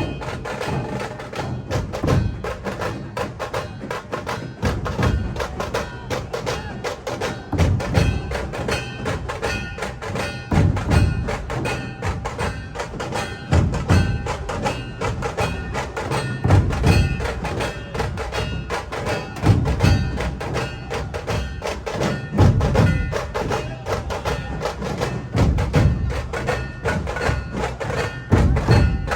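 Background music with fast, clicking percussion over held tones and a deep bass swell about every three seconds.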